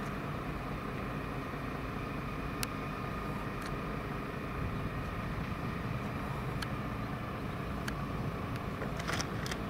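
Parked fire engines running: a steady low engine drone with a faint steady high whine over it, and a few sharp clicks near the end.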